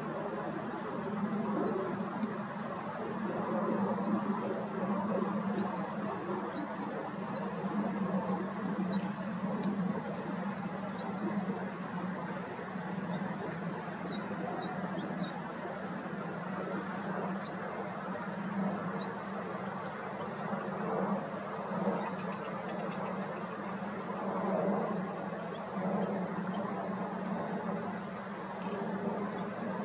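Outdoor ambience: a steady high-pitched insect drone over a low steady hum, with faint scattered chirps.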